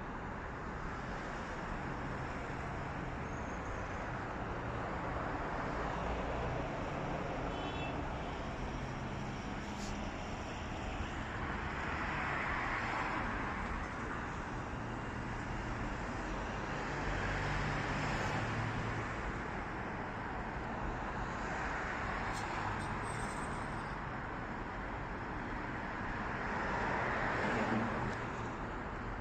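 Road traffic noise: a steady hum of traffic, with vehicles passing and the sound swelling and fading every five seconds or so.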